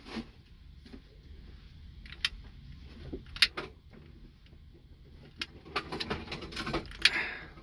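Scattered sharp clicks and light handling knocks as a lighter is worked on a waterproof heat-shrink crimp connector, shrinking it onto the wire. The clicks come at irregular intervals, bunching up in the last couple of seconds.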